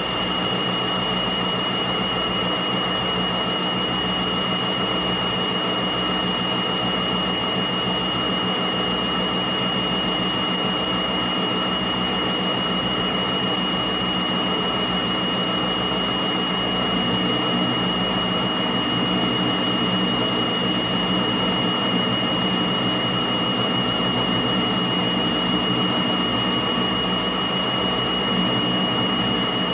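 Metal lathe running steadily with its chuck spinning and a boring bar in the workpiece's bore, a constant high-pitched whine over the motor's hum and a faint low throb about once a second.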